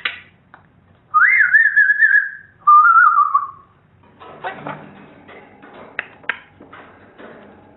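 Parrot whistling two loud warbling notes, the first higher, the second lower and falling slightly, followed by quieter chattering with a few sharp clicks.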